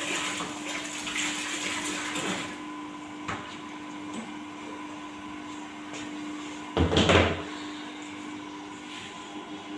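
Warm water being poured into a bucket of conditioner for the first two and a half seconds, over the steady hum of a slow electric mixer stirring the mix. About seven seconds in there is a brief, loud knock.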